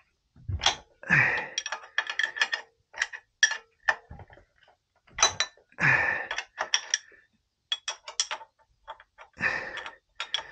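Socket wrench working on metal fuel injection line nuts: quick runs of sharp clicks, with metal clinks and short scrapes as the fittings are loosened.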